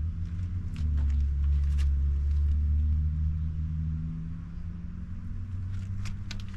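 A motor vehicle's engine running with a low rumble, loudest from about one to four seconds in and then easing off, with a few short clicks over it.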